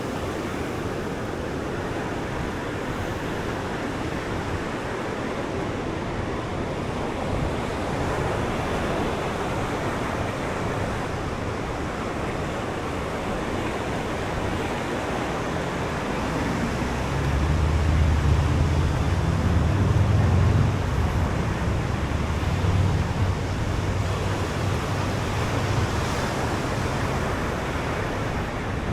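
Ocean surf washing ashore, a steady hiss of breaking waves. About halfway through a louder low rumble swells up for several seconds, then eases off.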